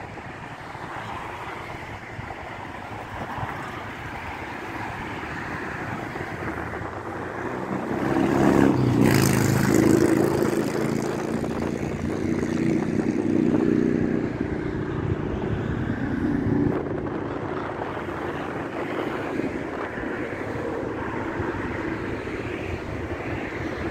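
Wind buffeting the microphone, with an engine passing that swells to its loudest about eight to fourteen seconds in and then fades.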